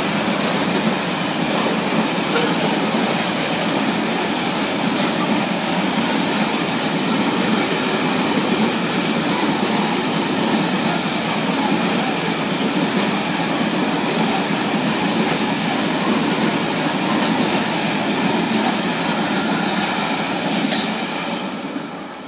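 Freight train of hopper wagons passing at speed: a steady rumble and rattle of wagon wheels on the rails, dropping away quickly as the last wagon clears near the end.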